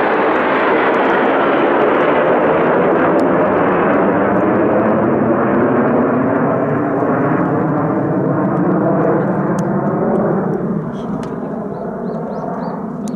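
Jet engine growl of Mitsubishi F-2 fighters flying overhead in formation. It is loud and steady, then becomes duller and drops in level about ten seconds in as the jets pull away.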